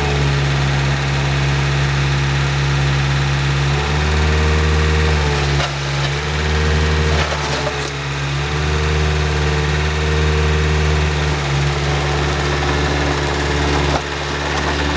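Mini excavator's four-cylinder Kubota 1.5-litre diesel engine running steadily. Its note shifts several times from about four seconds in as the hydraulics work the boom and arm, then settles again.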